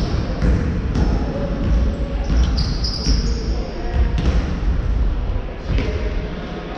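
Basketball bouncing on a wooden gym floor with players' footsteps: irregular thuds echoing in a large sports hall.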